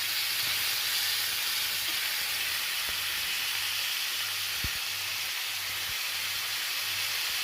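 Chicken thighs sizzling steadily in hot oil in a frying pan as they sear, with one light knock about halfway through.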